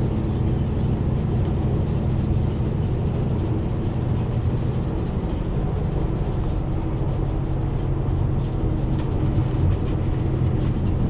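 Steady engine and road noise inside a moving truck's cab, a constant low drone at highway speed.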